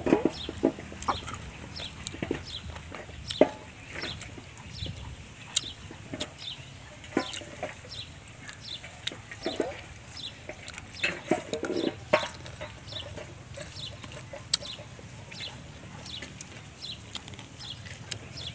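Chickens clucking now and then, with frequent short high-pitched chirps and scattered soft clicks.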